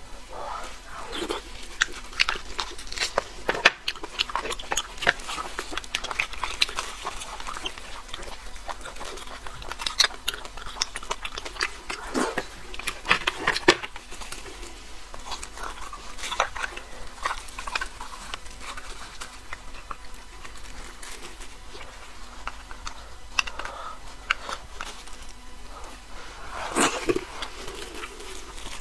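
Close-miked eating of braised bone marrow: wet slurping, sucking and smacking mouth sounds, with irregular clicks of a spoon scraping inside the bone.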